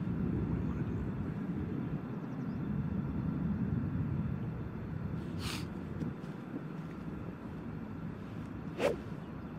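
Wind buffeting the microphone with a steady low rumble, a short hiss about halfway through and one sharp tick near the end.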